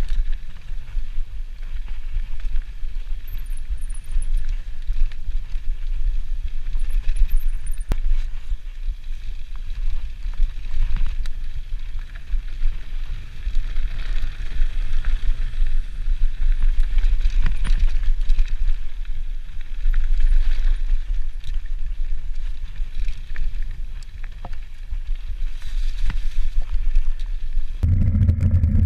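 Mountain bike rolling fast down dirt singletrack: a steady low rumble of wind and vibration on the handlebar-mounted camera, tyre hiss and scattered rattles and clicks from the bike. About a second before the end the sound cuts abruptly to a steady low hum.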